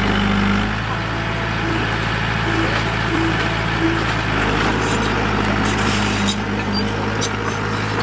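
Diesel engine of heavy earthmoving machinery running at a steady pace, a continuous low drone, with a few short sharp clicks or clanks between about five and seven and a half seconds in.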